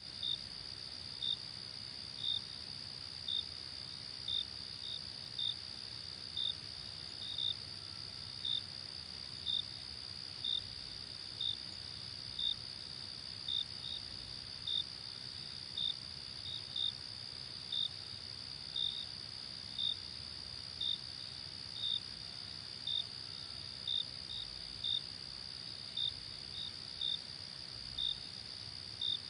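Crickets chirping at night: a steady high-pitched trill with single, sometimes paired, chirps repeating about once a second, over a faint low rumble.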